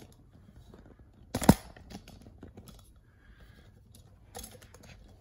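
A single sharp knock about a second and a half in, with a few faint clicks and light handling sounds around it.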